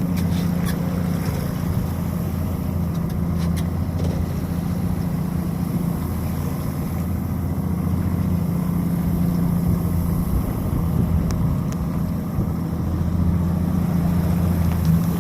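Boat engine running at low speed, a steady low hum that swells and eases slightly every few seconds as the boat turns.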